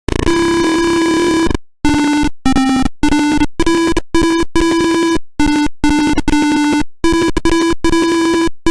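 Piezo buzzer driven by an Arduino Uno playing a simple melody as a string of buzzy single notes with short gaps between them. A long first note is followed by shorter notes at about two a second, playing one of the jukebox program's songs.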